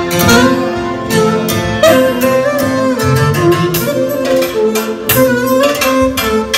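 Clarinet playing a fast, ornamented melody with pitch bends over electronic keyboard accompaniment and a programmed drum beat, in Albanian folk style.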